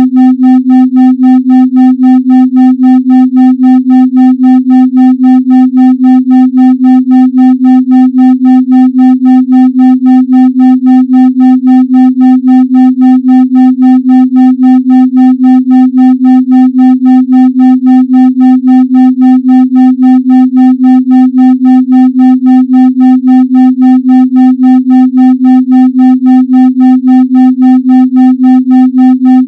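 Electronic 256 Hz tone pulsing on and off evenly about three and a half times a second, with fainter overtones above it: an isochronic tone pulsed at 3.5 Hz for brainwave entrainment.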